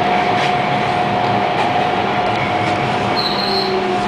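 Bombardier T1 subway car running on the rails, heard from inside the front car: a steady rumble with a steady whine. A short, high wheel squeal comes a little after three seconds in.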